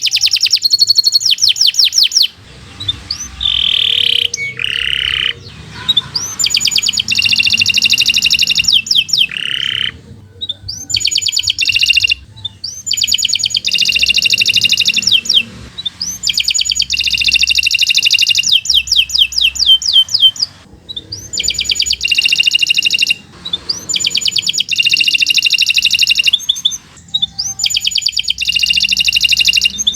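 Domestic canary singing in long phrases of very fast repeated notes, each phrase lasting one to three seconds with short breaks between. A few held whistled notes come in the first third.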